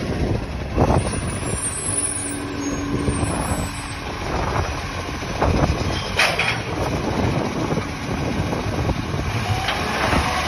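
Side-loading recycling truck running as it creeps along and pulls up at a kerbside bin, with a sharp hiss of its air brakes about six seconds in. A short steady tone sounds around two to three seconds in, and a rising whine begins near the end as the lifting arm goes to work.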